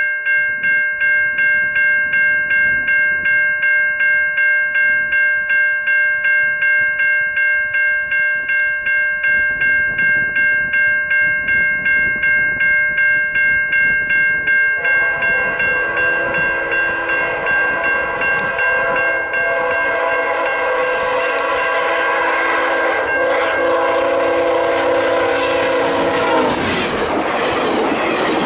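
A level-crossing bell rings steadily. About fifteen seconds in, the horn of an approaching GE P42DC diesel locomotive joins it and sounds for about ten seconds. Near the end the locomotive passes close by with a loud rush of engine and wheel noise.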